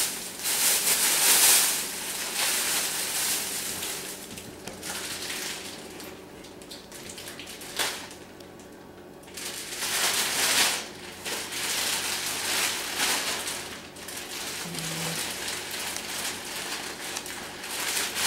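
Plastic bags rustling and crinkling as they are pulled open and handled, in uneven bursts with a short lull about eight seconds in.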